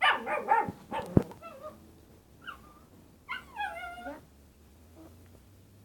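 A dog howling in a few separate wavering calls that slide down in pitch, its trained 'singing'. A single low thump about a second in.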